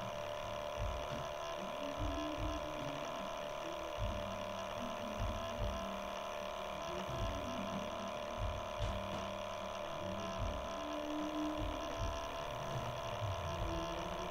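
Steady electrical hum made of several constant tones from the recording setup, with faint low thumps and soft low sounds now and then.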